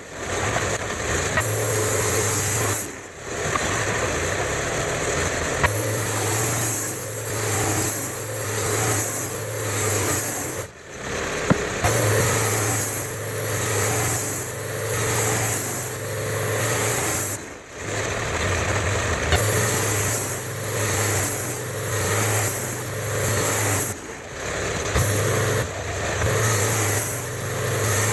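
Sawmill running and cutting poplar boards for siding: steady engine noise with a hissing, pulsing blade sound, which drops out briefly four times.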